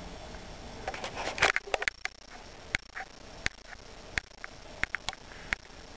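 A burst of rustling and clicking about a second in, then about seven sharp single clicks at irregular intervals.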